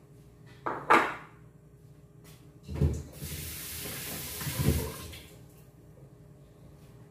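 A sharp clatter about a second in, then a kitchen tap running into a stainless steel sink for about two seconds, with dull knocks at its start and near its end.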